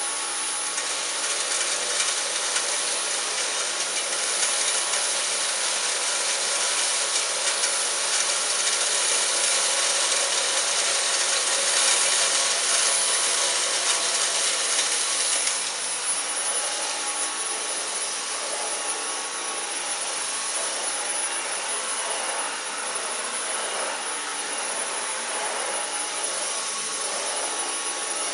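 Dyson Cyclone V10 Animal cordless vacuum running on medium power, sucking up cornflakes, with a steady high motor whine. The sound drops a little about halfway through.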